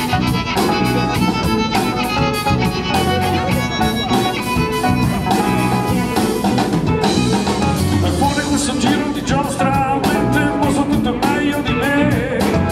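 Rock band playing live, with drum kit and guitar over a steady beat.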